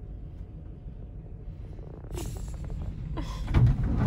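Steady low rumble inside a parked vehicle, then about two seconds in a door opens and outside noise comes in, with a few clicks and a heavy thump near the end as a child climbs in.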